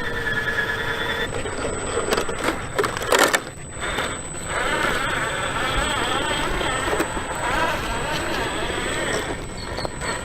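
Electric 1/10 scale RC truck driving: motor whine with tyre and chassis noise, and a loud knock about three seconds in.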